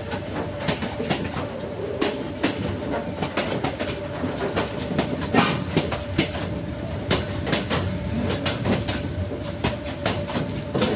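Passenger train running along the track, heard from a carriage window: wheels clacking over rail joints and carriages rattling in a dense, irregular stream of clicks and knocks over a low rumble. A faint steady tone runs underneath as the train rounds a curve.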